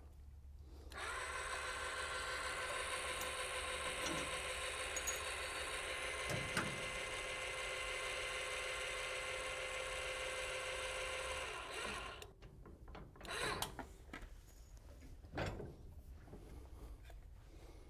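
A small electric motor whirs steadily for about ten seconds and then cuts off, followed by a few scattered clicks and knocks as parts are handled.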